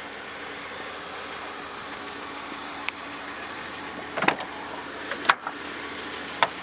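Holden VS Commodore's V6 idling steadily, with a few sharp clicks and knocks about three, four, five and six seconds in.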